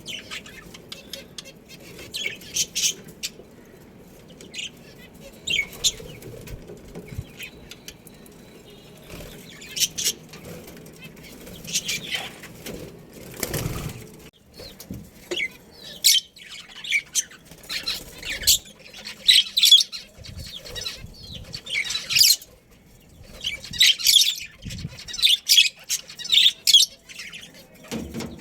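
Pet budgerigars chirping in short, high bursts that come faster and louder in the second half, with a short rustling burst about halfway through.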